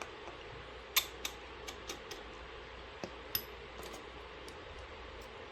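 Small sharp metallic clicks and taps of a precision screwdriver and tools working the tiny screws of an iPhone's camera cover, a handful of them, the loudest about a second in.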